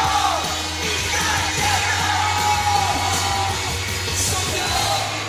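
Live band playing with singing, heard from within the audience, with yells from the crowd.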